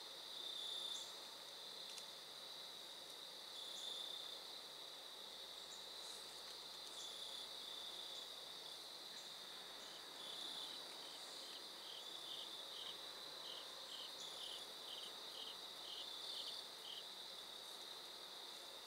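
Faint, steady chirring of insects, with a run of evenly spaced chirps, about two to three a second, starting about ten seconds in and lasting some seven seconds, and a few short high chirps scattered through.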